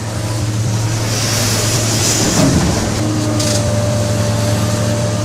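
Komatsu PC700-series hydraulic excavator's diesel engine running with a steady low hum. About a second in, a rushing hiss rises over it for a second or two, and there is a brief hiss burst near the three-and-a-half-second mark.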